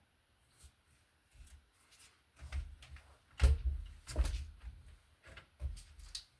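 An irregular run of knocks and clunks from objects being handled and set down, with dull low thuds under them; the two loudest come about three and a half and four seconds in.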